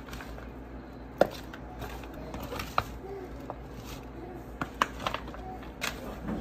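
Irregular clicks and knocks of a spatula against a disposable aluminium foil pan as shredded cabbage and carrots are tossed in it, the sharpest knock about a second in.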